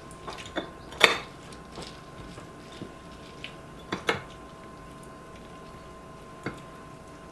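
A lemon half being twisted and pressed by hand on a green reamer juicer cup, with scattered sharp clinks and knocks as the juicer moves. The loudest clink comes about a second in, a close pair near four seconds and a lighter one later.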